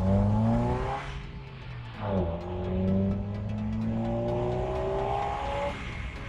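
Chevrolet Beat's engine accelerating, with an aftermarket K&N air filter on the intake. The pitch climbs, drops at a gear change about two seconds in, climbs again through a long pull, and falls away as the driver eases off near the end.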